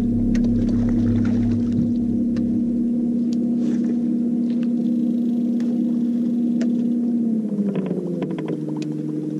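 Boat motor running steadily with an even hum, its pitch dropping about seven and a half seconds in and then holding at the new speed. Faint scattered ticks sound over it.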